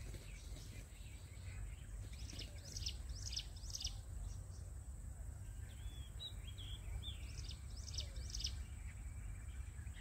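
Jungle bush quail calls: short, high, sharp notes in bursts of three or four, one burst about two seconds in and another near the end, with a few softer chirps between them.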